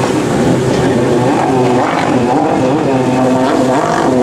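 Several racing jet skis' engines revving and easing off as they run and turn around the course buoys, their pitch repeatedly rising and falling, over a steady rush of noise.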